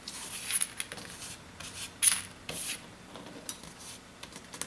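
Adhesive being peeled and pulled off inside an iPad 2 during a repair: a run of short scratchy rustles and small clicks, the loudest about two seconds in.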